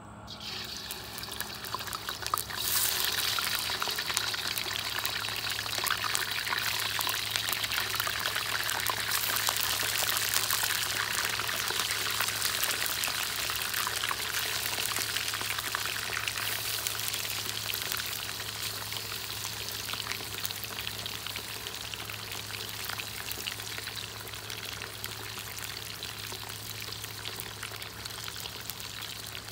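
Raw chicken chunks sizzling and spitting in hot oil in a wok. The sizzle starts at once, jumps louder about two and a half seconds in as more pieces go in, then slowly eases.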